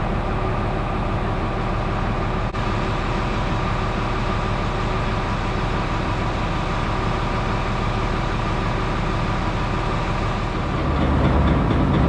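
Large farm tractor's diesel engine idling steadily, growing louder and deeper near the end.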